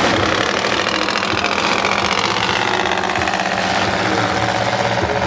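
Several demolition derby cars' engines running together, idling with some revving.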